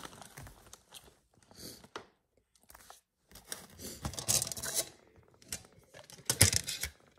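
Intermittent rustling and crinkling of handled paper or plastic, with the loudest bursts about four and a half and six and a half seconds in.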